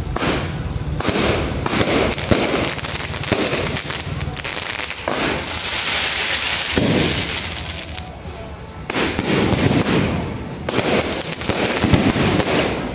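Fireworks going off overhead: repeated sharp bangs of launches and bursting shells. In the middle there is a loud hiss from rising spark-trailing comets.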